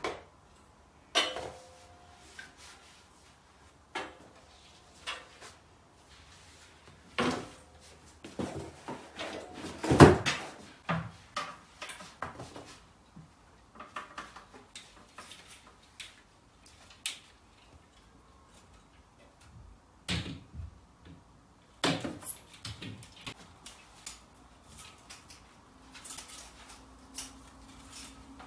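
Scattered knocks, clicks and rattles from handling and fitting a venetian blind's headrail and slats into its brackets, with the loudest knock about ten seconds in.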